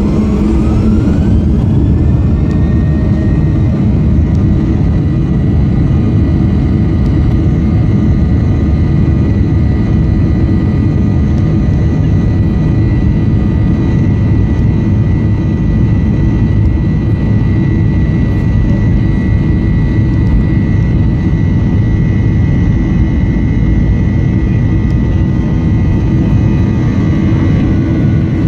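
Boeing 737-800's CFM56-7B jet engines spooling up, heard inside the cabin: a whine rises over the first two seconds and then holds steady over a loud rumble at takeoff thrust.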